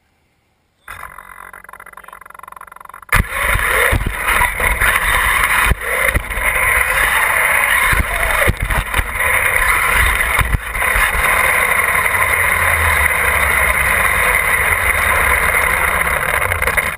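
R/C monster truck heard from a camera mounted on its own chassis: a weaker steady hum from about a second in, then about three seconds in a sudden loud run of motor and drivetrain noise with dense rushing noise as it races over gravel, and several sharp knocks as the chassis bounces.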